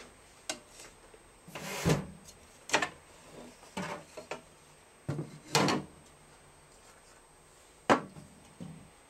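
Handling noises: a fabric sample being moved by hand on a sewing machine bed, a few separate rustles and knocks, the sharpest knock near the end.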